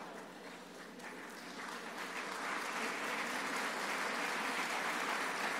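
Audience applauding, the clapping building up over the first two seconds or so and then holding steady.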